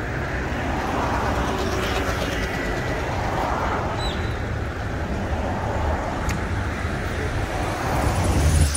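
City street ambience: steady road-traffic noise with faint, indistinct voices of passers-by. A low rumble swells louder near the end.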